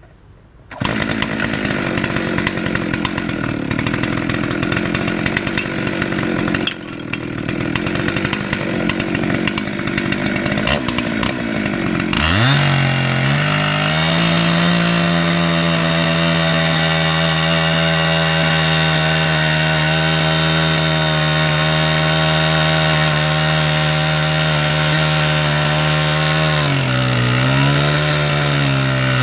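Husqvarna 372 XP two-stroke chainsaw on an Alaskan mill comes in loudly about a second in and runs roughly at lower speed. About twelve seconds in it revs up to full throttle and holds a steady high pitch while milling the first cut through an eastern red cedar log. Near the end the pitch dips briefly and recovers.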